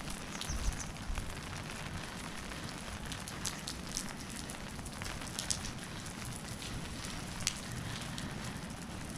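Heavy rain falling, a steady hiss with scattered sharp ticks of individual drops striking close by. There is a brief low thump under a second in.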